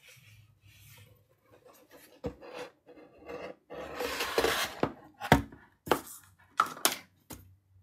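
A sheet of watercolour paper being handled and turned on a table: soft rustles, a louder scraping rustle about four seconds in, then several sharp clicks and knocks.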